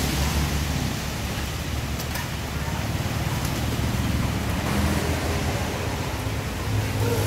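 Steady hiss of rain, with a low rumble underneath.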